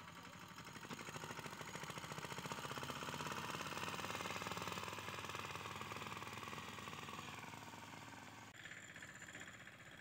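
Mahindra Yuvraj 215 NXT mini tractor's single-cylinder diesel engine running with a rapid, even beat as it pulls a heavily loaded trailer, growing louder over the first few seconds and then fading. The sound changes abruptly near the end.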